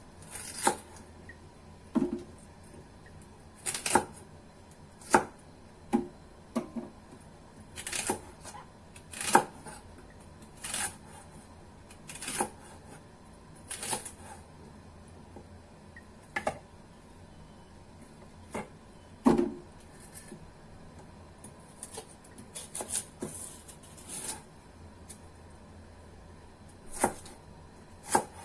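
Cleaver chopping celery stalks on a cutting board: single sharp knocks of the blade going through the stalk onto the board, at an uneven pace of about one every second or two, with a quicker run of cuts about three-quarters of the way through.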